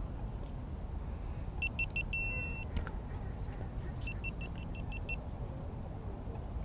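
Electronic device beeps: three quick short beeps followed by a longer tone about two seconds in, then a fast run of about seven short beeps just after four seconds. Under them, a steady low rumble.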